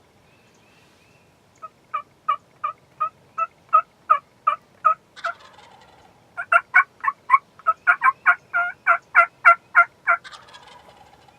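Two runs of loud turkey yelps, about three a second. The second run is quicker and louder than the first.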